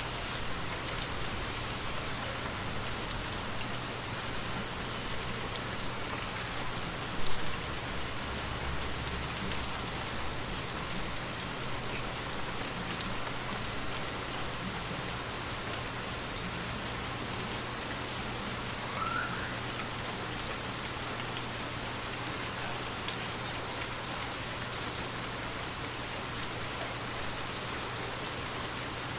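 Steady rain falling, an even dense hiss of drops. A single brief louder thump comes about seven seconds in.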